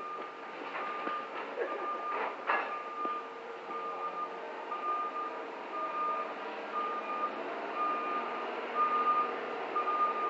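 An electronic beeper sounding one beep about every second, each about half a second long, all at one pitch, over a steady low hum. A couple of sharp knocks come about two seconds in.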